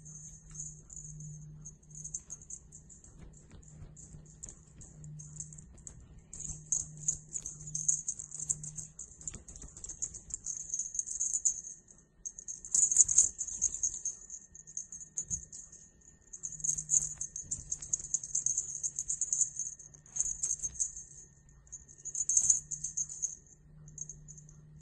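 Bursts of scratchy, crackling rustle with sharp clicks, loudest about halfway through: a Maine Coon kitten's paws and claws scrabbling on the carpeted platform of a cat tree as it plays.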